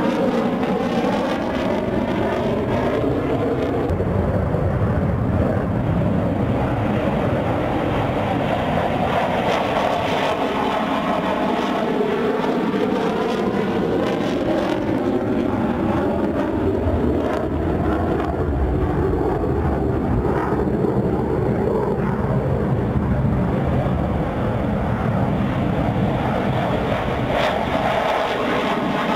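F-16 Fighting Falcon fighter jets taking off and climbing away, their jet engines loud and steady, with whooshing tones that sweep up and down as the aircraft pass.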